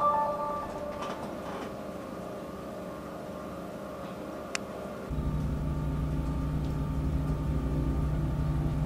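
A quiet steady hum, with a short electronic tone at the very start and a single sharp click about four and a half seconds in. About five seconds in, a much louder steady low engine drone begins abruptly.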